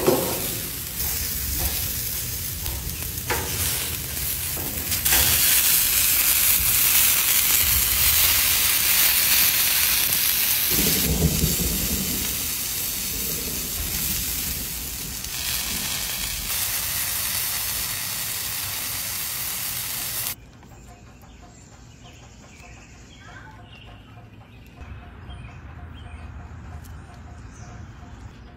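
Tomatillos, red onion, jalapeño and garlic dropping onto a hot flat-top griddle, then sizzling steadily as they char. The sizzle cuts off suddenly about two-thirds of the way through, leaving only faint sounds.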